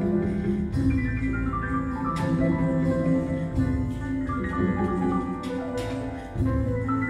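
Live band playing an instrumental passage: runs of piano notes over double bass, with percussion hits.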